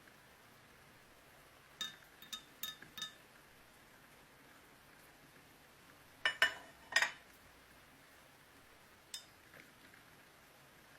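Metal clinking: short, ringing metal-on-metal taps, four in quick succession, then three louder ones a few seconds later and a single one near the end.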